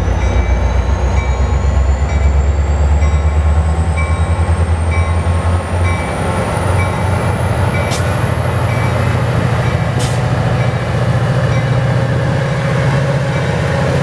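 Diesel locomotive (Metra MP36PH-3S) running loud at close range, its engine note stepping up in pitch about six seconds in as it throttles up. The locomotive bell rings steadily, a little under twice a second, and two sharp clicks come near the middle.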